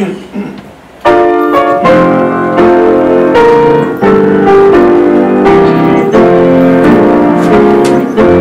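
Piano playing a slow chordal introduction to a worship song, starting about a second in with a new chord struck roughly once a second.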